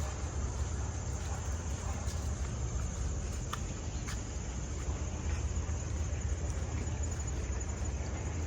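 Steady outdoor background noise: a low rumble with a faint, even high buzz and a few faint ticks.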